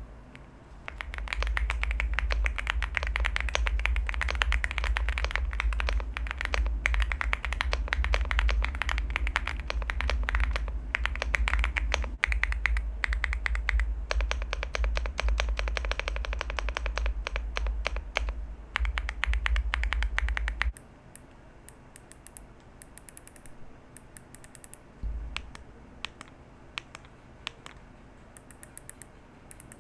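Leobog Hi75 aluminium mechanical keyboard with Leobog's in-house factory-lubed linear switches, typed on rapidly. About 21 seconds in, the fast typing stops and only scattered single keystrokes follow.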